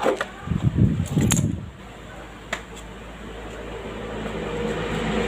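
A few sharp clicks and low knocks as a standing fan's push-button switch and wiring are handled, then a steady mechanical hum that slowly grows louder.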